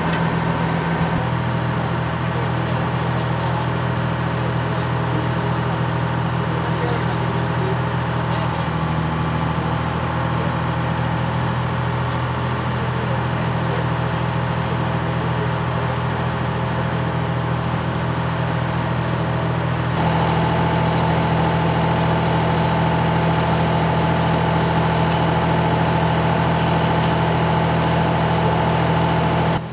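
A large engine running steadily with a low, even hum. About two-thirds of the way through, the tone changes and it gets slightly louder.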